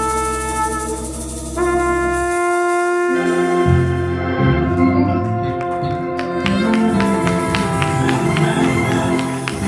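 Live band music: organ and horns hold sustained chords, then a moving bass line and drums with cymbal ticks join about a third of the way through.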